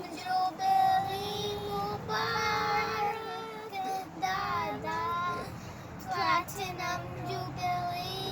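A child singing in long held notes.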